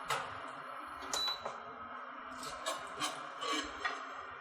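Light clinks and knocks of kitchen utensils against the pan of dry-roasted ajwain seeds, about seven short separate strikes over a faint steady background.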